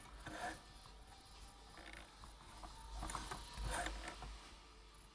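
Faint, scattered mechanical clicks from the stitch selector dial of a vintage Janome Combi DX 502 sewing machine as it is turned to the stretch-stitch setting.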